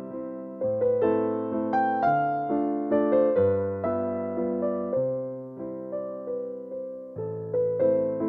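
Background music: a gentle electric piano melody over chords, notes struck and left to fade, a new one about every half second.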